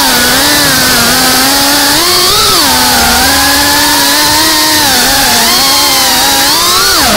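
GEPRC CineLog35 FPV cinewhoop's brushless motors and propellers whining in flight, the pitch rising and falling with the throttle. Near the end the pitch drops sharply as the throttle is cut, then climbs straight back up.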